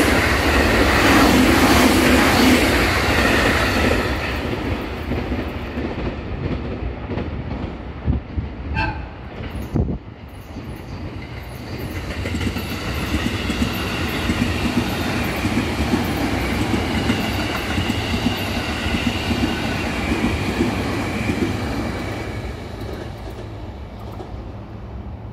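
JR Kyushu 811 series electric train passing at speed: wheel rumble and clatter on the rails, loudest in the first few seconds and then fading. About twelve seconds in, train noise swells again with a faint whine and fades away near the end.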